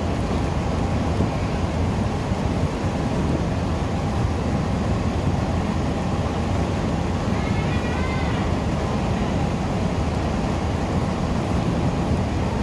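Steady low rumble and rushing noise of a car ferry underway, heard from its open deck. A brief faint wavering high sound comes about eight seconds in.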